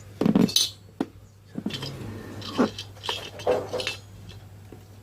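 Small metal parts and tools clinking and knocking against one another in irregular handling sounds, about half a dozen strikes, over a steady low hum.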